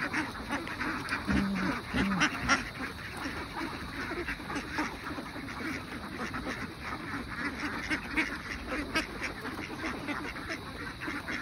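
A large flock of domestic ducks feeding, quacking low and continually over a dense crackling clatter of many bills pecking and dabbling at feed on a tarp. A single clearer call stands out about two seconds in.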